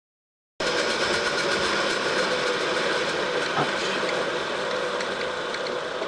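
A milling machine running steadily while cutting a metal block, a held mechanical whine over a noisy hiss. It cuts in abruptly about half a second in after dead silence, and eases a little near the end with faint light clicks.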